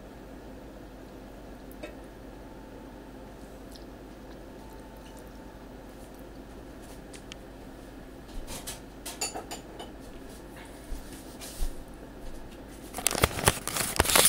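Kitchen dish-handling sounds over a steady low hum: scattered clicks and clatters of a bowl and utensils begin about eight seconds in, with a louder run of knocks and rattles near the end.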